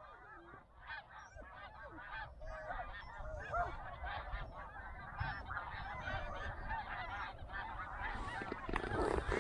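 A flock of snow geese calling: many overlapping high, yelping honks in a continuous chatter, growing somewhat louder toward the end.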